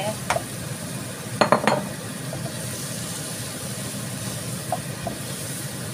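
Wooden spatula stirring cubed tempe into a frying pan of sizzling spice paste and vegetables, over a steady sizzle. A quick cluster of loud knocks about one and a half seconds in, with a few lighter clicks later.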